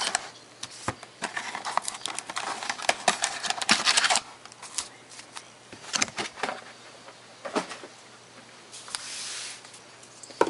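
Handling noise from a cardboard trading-card box and its foil packs: a dense run of clicks and crinkles for about four seconds, then a few scattered clicks and a brief rustle near the end.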